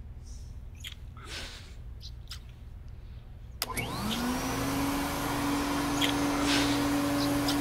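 An upright vacuum cleaner switches on about halfway through: its motor whine rises quickly in pitch and settles into a steady drone over a rushing hiss of air.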